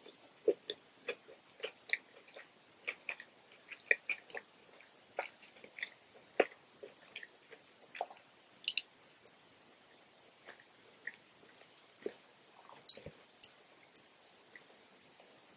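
Close-miked chewing of a cucumber roll: a quick run of sharp crunches and clicks that thins out after about nine seconds, with a short burst again near the end.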